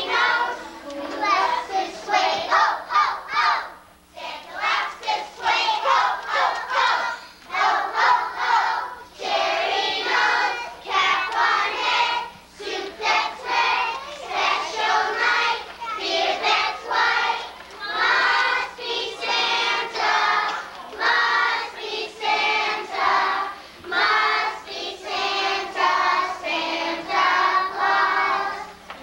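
A group of young children singing a song together, line after line with brief pauses between phrases.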